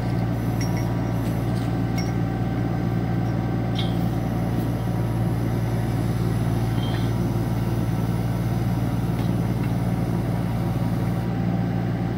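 Kubota U25 mini excavator's diesel engine running at a steady speed, with a few faint light ticks.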